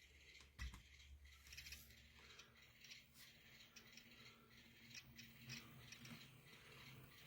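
Very faint small clicks and ticks from an N-scale model locomotive working on the layout track, with a faint steady motor hum coming in about two seconds in.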